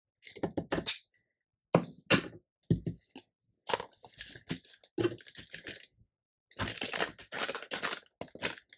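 Paper crinkling and crackling in irregular bursts as it is handled and pressed, with a few soft knocks on the table.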